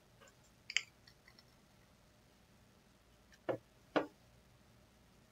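Clicks at a computer desk: a sharp click about three-quarters of a second in, a few faint ticks after it, then two louder taps about half a second apart near the middle.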